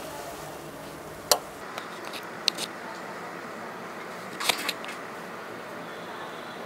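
A few short, sharp clicks over faint steady room hiss, the loudest about a second in and again past four seconds.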